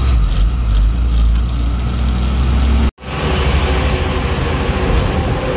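Container lorry's diesel engine running under way, heard from inside the cab as a steady low drone with road noise over it. The sound cuts out for an instant about three seconds in.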